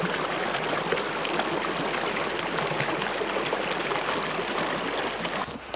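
Small creek running over rocks: a steady rush of flowing water that cuts off abruptly near the end.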